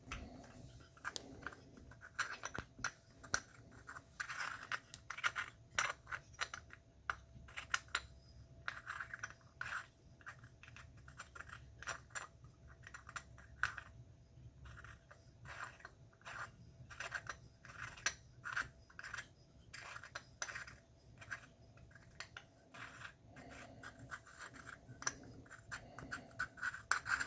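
Fine metal threads of a telescope field flattener scraping and clicking irregularly as they are worked back and forth by hand, trying to catch and screw together.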